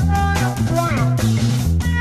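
Instrumental passage of a late-1960s psychedelic rock song: a lead guitar line with bending notes over a repeating bass line and drums.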